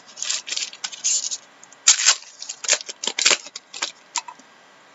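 Foil trading-card pack being torn open, the wrapper crinkling in a run of irregular crackly rustles that stop about four seconds in.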